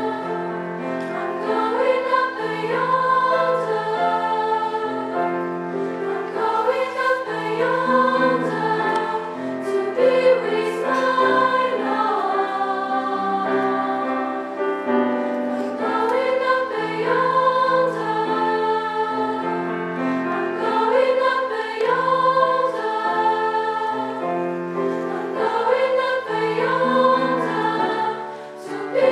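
A girls' choir singing, with a short drop in volume near the end.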